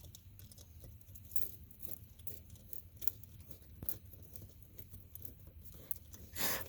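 Faint irregular scratching and small clicks from handling a rubber pipe coupling and hose clamp on a 4-inch PVC drain pipe in loose dirt, with a louder brief rustle near the end.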